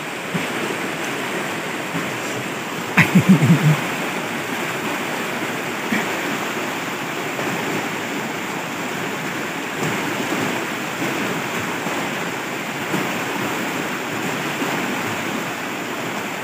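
Swollen, muddy river in flood rushing past: a steady noise of fast-flowing water, with one brief louder sound about three seconds in.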